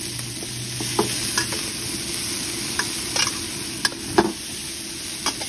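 Chili, garlic and fingerroot stir-frying in hot oil in a wok, sizzling steadily while a spatula stirs and scrapes them, with several sharp clicks of the spatula against the pan, the loudest about four seconds in.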